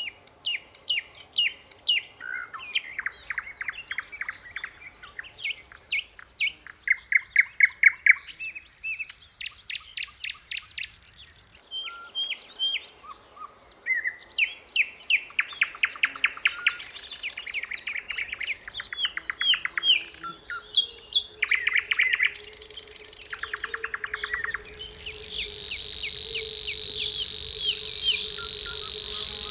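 Several songbirds singing, with repeated chirps and fast trills. About 25 seconds in, a steady insect buzz starts up and becomes the loudest sound.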